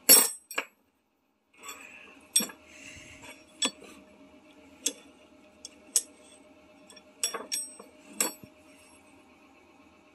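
Steel engine pushrods and hand tools clinking and tapping against each other as they are handled on a workbench: about nine sharp metallic clicks at irregular intervals, a few ringing briefly, over a faint steady hum.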